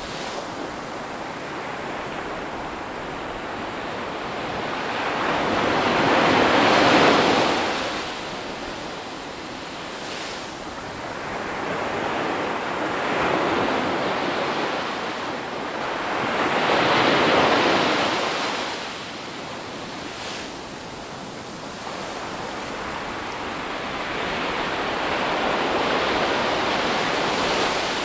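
Ocean waves breaking and washing up the shore, rising and falling in slow surges. Two big breakers come, one about seven seconds in and another about ten seconds later, with smaller swells between them.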